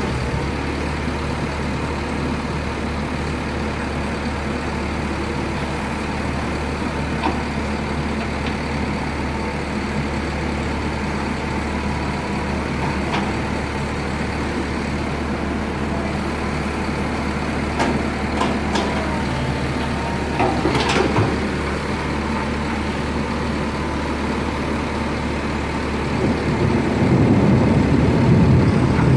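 Long-reach excavator's diesel engine running steadily, with a few brief high squeaks about two-thirds of the way through. Near the end the engine works harder and grows louder.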